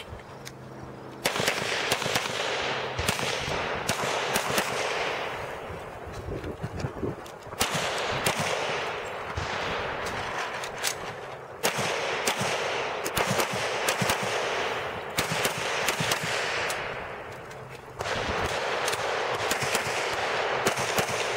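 Glock pistol shots in an IPSC stage, fired in quick strings with short pauses between them, over a steady rushing hiss.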